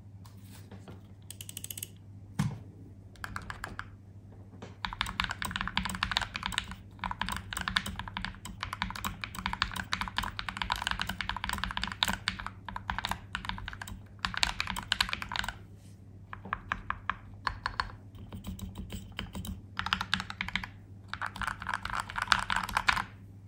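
Modded Akko 5087B Plus mechanical keyboard being typed on. It has a fully sound-dampened case and PBT double-shot keycaps. A few single keystrokes at first, then long runs of fast typing with short pauses, over a steady low hum.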